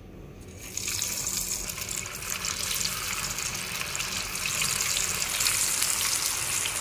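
Flour-coated potato sticks sizzling in hot oil as they are dropped in to deep-fry on medium heat. The hiss starts about half a second in and builds a little louder.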